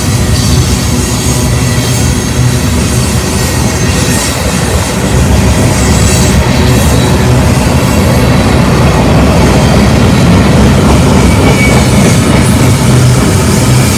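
Freight cars rolling past at close range: steel wheels rumbling and clattering over the rails, a little louder from about five seconds in, with a faint wheel squeal near the end.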